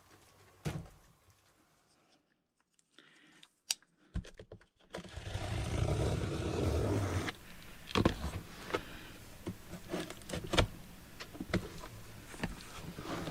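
A cardboard product box being handled and opened: a few isolated clicks, then about two seconds of scraping and rustling near the middle, followed by scattered sharp knocks and taps as the contents are moved.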